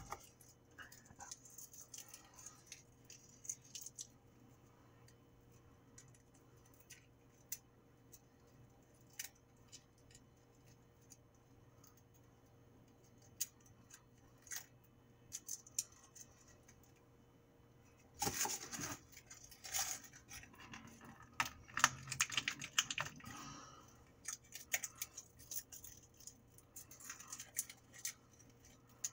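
Garlic cloves being peeled by hand: scattered small clicks and crackles of papery skin, with a denser patch of crinkling and tearing about two-thirds of the way through, over a faint steady hum.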